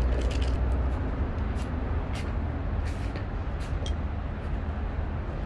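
Steady low rumble of city traffic and wind, with a few faint light clicks.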